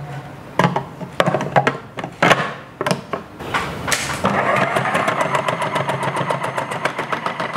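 A few knocks and clicks of the food processor's plastic parts being handled, then about four seconds in the Philips HR7776 food processor's motor starts and runs steadily while its slicing disc cuts a carrot, with a fast, even ticking of the blade through the carrot.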